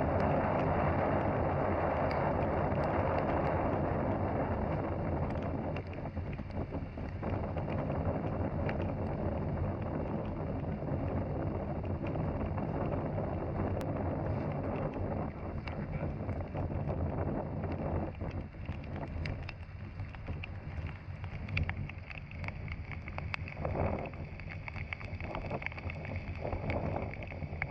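A boat motor running steadily under wind buffeting the microphone and rain. The wind noise is heaviest for the first few seconds, then eases.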